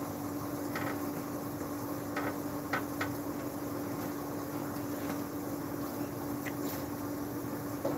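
Steady machine hum at one pitch over a constant background hiss, with a few faint short clicks scattered through.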